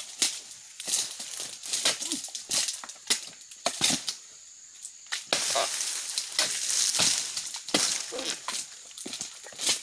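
Oil palm frond stalks being hacked off with a long-handled pruning tool: irregular sharp chops and cracks, with rustling and crunching of dry fronds in between.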